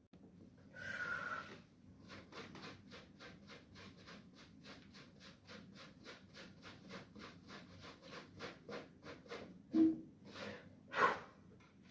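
Mouth-made sound effects by a child: a breathy hiss, then a fast run of short panting breaths, about four or five a second, ending in a short grunt and a louder huff.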